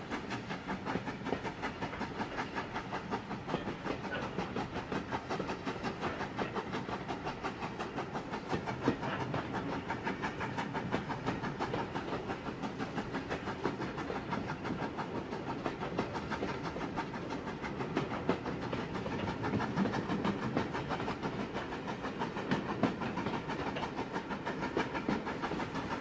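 A steady, rhythmic background soundtrack with a regular clatter of several beats a second. It runs evenly throughout and does not come from the knife or marker work on screen.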